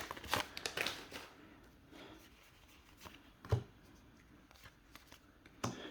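Flesh and Blood trading cards being handled and flicked through one by one: a few faint card slides and snaps in the first second or so, one short tap about three and a half seconds in, and otherwise quiet.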